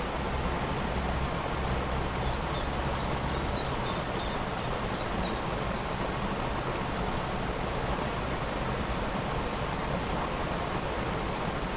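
Steady rushing of a waterfall. About two and a half seconds in, a small bird gives a quick series of about eight short, high, downward chirps.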